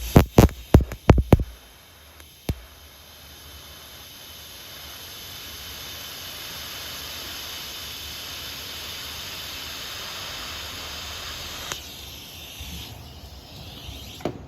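TIG welding arc hissing steadily for several seconds, building up and then dying away near the end. Before it, a quick run of sharp clicks and one more single click.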